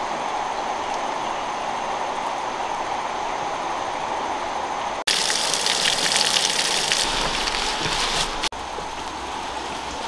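A steady rushing hiss of outdoor water ambience. About halfway it cuts to the louder, brighter splashing of a thin stream of water falling onto rocks, which runs for a few seconds and cuts off suddenly back to the steady hiss.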